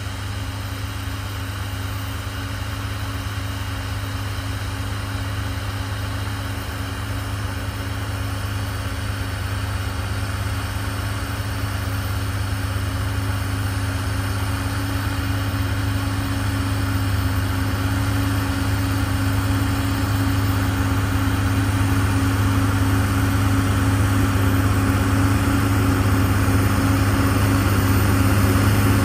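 Deutz-Fahr Agrotron X720 tractor's diesel engine running steadily as the tractor pulls a tillage implement across a field. It grows steadily louder as the tractor approaches.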